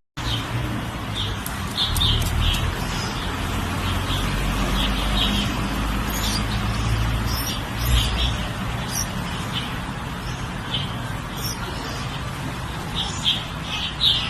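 Repeated short, high chirps, bird-like, scattered irregularly over a steady low background rumble.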